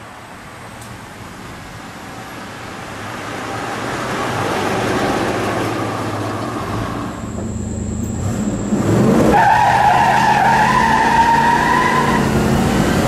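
The 1965 Oldsmobile 442's 400 cubic inch V8 running as the car drives up and grows louder, then heard from on board under acceleration. About nine seconds in, a squeal rises quickly in pitch and holds for about three seconds: the tyres squealing.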